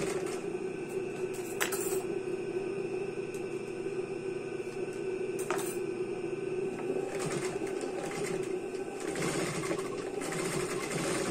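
Industrial sewing machine running steadily, stitching slowly through a thick ruffled fabric rug. Two sharp clicks stand out, one under two seconds in and one about halfway through.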